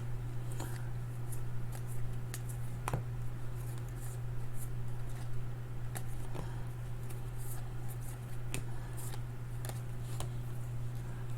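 Trading cards being handled, with scattered light clicks and slides as cards are flipped and set down, over a steady low hum.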